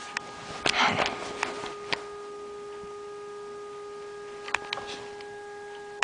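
A continuous steady, unidentified droning tone, one held pitch with overtones, which sounds like a car horn. Clicks, knocks and a short rustle in the first two seconds, and a couple more clicks about four and a half seconds in.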